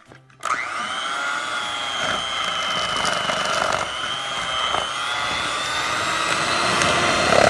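Electric hand mixer beating pancake batter in a plastic tub: the motor whirs up to speed about half a second in, then runs steadily.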